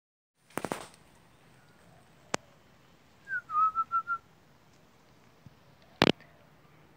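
A short whistled phrase about three seconds in: a quick dip in pitch, then four short notes at one steady pitch. Sharp clicks near the start and about two seconds in, and a loud double click about six seconds in.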